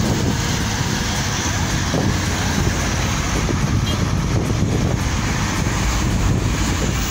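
Steady low rumble of road and wind noise heard from inside a moving vehicle driving through traffic.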